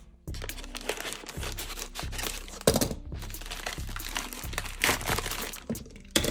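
Plastic packaging crinkling and rustling as it is handled and opened, with a few sharper crackles, over background music.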